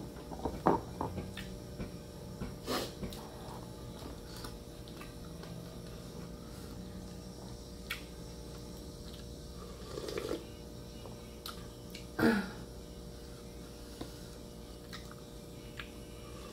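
A person eating with their hands: quiet chewing and mouth sounds, with a few short clicks and knocks of fingers and a spoon against bowls, the loudest about ten and twelve seconds in, over a faint steady hum.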